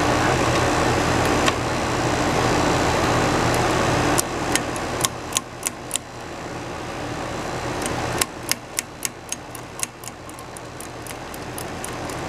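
HVAC condensing unit running with a steady mechanical hum, which drops off sharply about four seconds in. From about eight seconds a quick run of metallic clicks, two or three a second, comes from a wrench being worked on the unit's refrigerant service valve.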